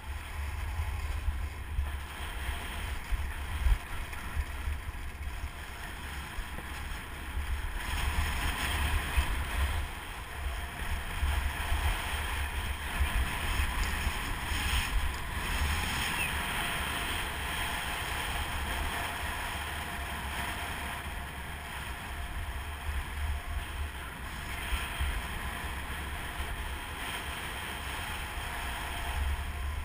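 Wind buffeting the GoPro Hero 2's microphone during a fast ski run, a gusty low rumble, over a steady hiss of skis sliding on packed snow. It is louder between about 8 and 16 seconds in.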